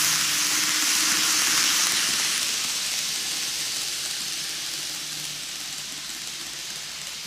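Micro Ace Keikyu 2100 series N-gauge model train running on TOMIX superelevated curved track: a steady hiss of wheels rolling on the rails with a faint hum, fading over the first few seconds as the train moves away around the curve.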